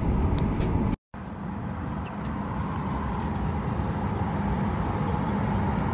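Steady cabin noise inside a jet airliner, with a brief dropout about a second in.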